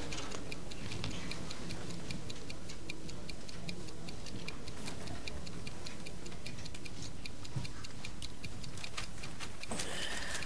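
Clock ticking in an even, regular rhythm, a countdown tick that keeps time with a timer running down.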